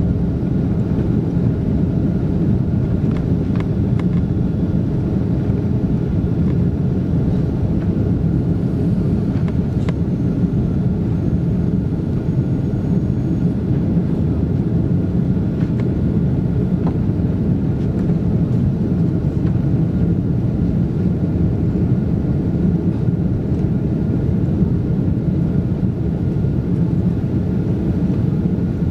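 Steady cabin noise inside a Boeing 777-200 airliner in flight shortly after takeoff: a low, even roar of jet engines and airflow, with a faint steady whine above it.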